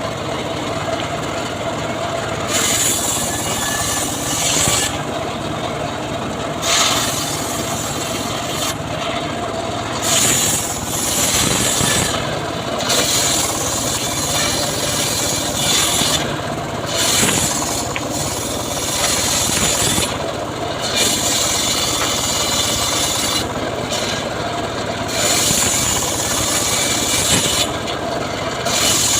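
Homemade srekel saw rig cutting sengon wood: the motor runs steadily while the blade rasps through the timber in hissy stretches that come and go every second or few.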